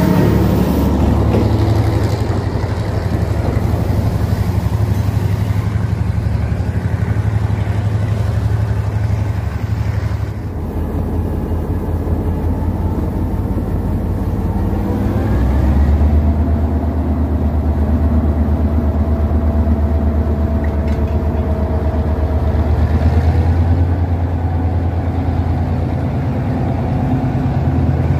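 Diesel locomotive's engine running close by with a deep, steady rumble as it moves its passenger train slowly past. The rumble eases briefly about a third of the way in, then swells again, with a steady whine over it for several seconds around the middle.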